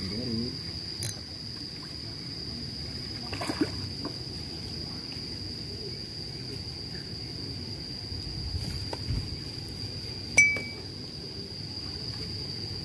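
Insects giving a steady, high, thin drone, with a few scattered clicks and one sharp, louder click about ten seconds in.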